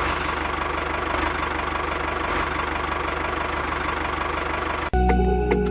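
Tractor engine running steadily at idle with a fast, even knocking beat, which cuts off suddenly about five seconds in as music begins.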